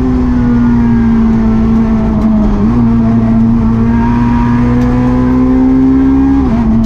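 Peugeot 208 R2 rally car's 1.6-litre four-cylinder engine heard from inside the cabin, running hard at high, nearly steady revs in fourth gear. The pitch jumps briefly about two and a half seconds in, and the revs drop near the end as the car shifts down to third.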